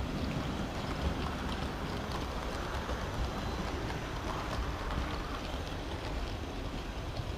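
Model train running on its track, heard from a camera riding on the train: a steady rumble and whirr of the wheels and motor, with faint ticks as it runs over the rails.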